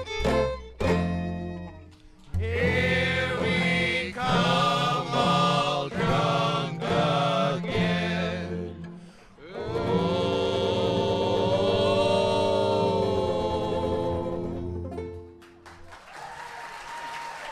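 Old-time string band of banjo, resonator guitar, upright bass and fiddle, with voices singing in harmony. It plays a song's close: a run of separate accented chords, then one long held final chord that dies away about fifteen seconds in. Applause follows near the end.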